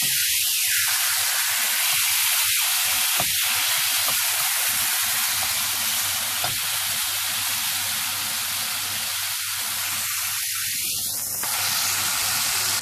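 Meat roll sizzling in hot oil in a frying pan: a steady hiss of frying.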